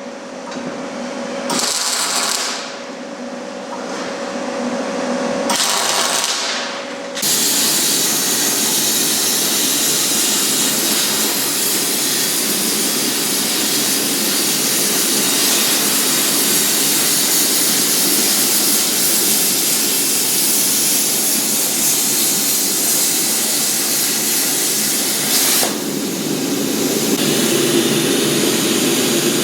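Power tool working metal, starting and stopping in short runs, then running steadily for about twenty seconds.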